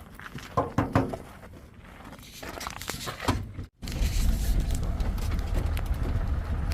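Brief faint talk and handling clicks, then after an abrupt cut nearly four seconds in, a vehicle's engine running with a steady low rumble as it drives.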